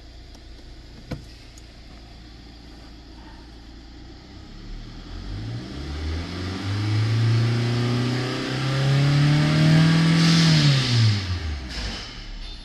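2016 Hyundai Sonata's 2.4-litre four-cylinder petrol engine, heard from inside the cabin, idling and then revved in park: one sharp click about a second in, engine speed climbs from about four seconds in, holds high with a brief dip, and falls back to idle near the end.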